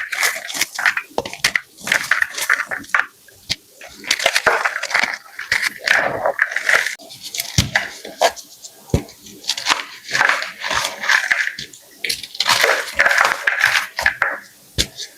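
Blocks of gym chalk being crushed: irregular crunching and crackling in dense clusters with short pauses between them.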